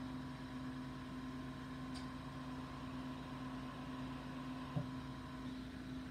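Steady low machine hum, with a faint tick about five seconds in.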